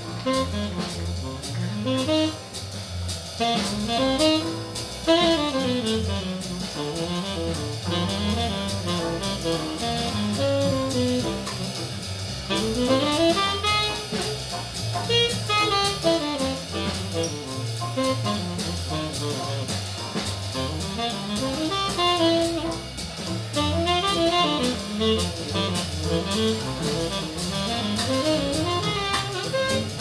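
Tenor saxophone playing a flowing jazz solo, its melody running up and down in quick phrases, over a swinging rhythm section of drum kit and upright bass.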